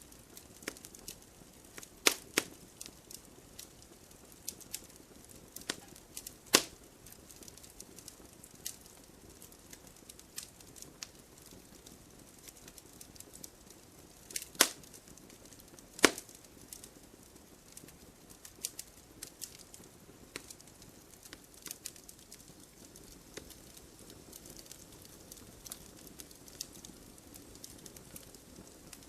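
Wood fire in a fireplace crackling, with irregular sharp pops of burning logs over a faint soft hiss; a handful of pops stand out much louder, two close together near the start and two more about halfway through.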